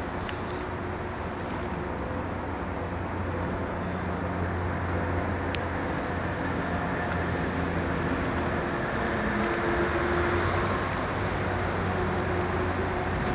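A steady low motor hum under a noisy wash, swelling slightly about ten seconds in.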